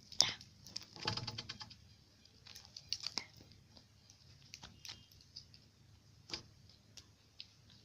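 Light handling noises from a squishy toy being turned over in the hands: scattered soft clicks and taps, with a short rustle about a second in.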